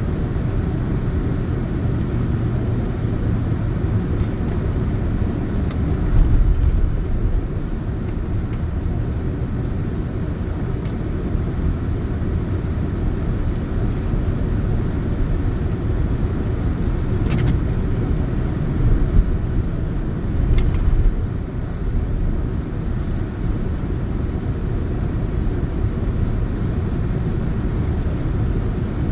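Car driving on a wet road, heard from inside the cabin: a steady low rumble of engine and tyres, with a few faint clicks.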